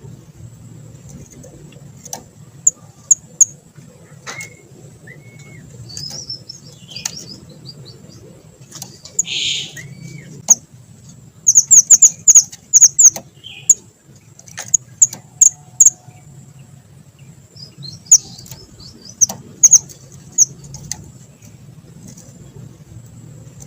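A small songbird, the 'mantenan kecil', calling in short, very high, sharp chirps. They come singly or in quick runs, with the fastest, loudest run of notes about halfway through, and there are scattered clicks between them.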